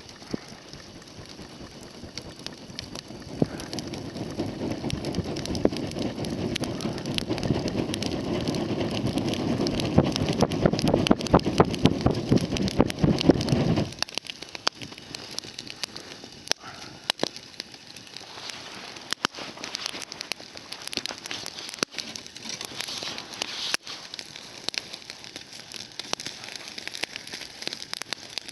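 Wood fire crackling and popping with scattered sharp snaps. A louder, denser low rush full of pops builds up over about ten seconds and then cuts off suddenly about halfway through, leaving lighter crackling.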